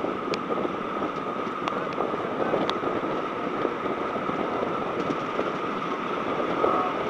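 Heritage railway carriage running at speed, heard from an open window: a steady rush of wheel-on-rail noise and wind, with a faint steady high whine and a few sharp clicks.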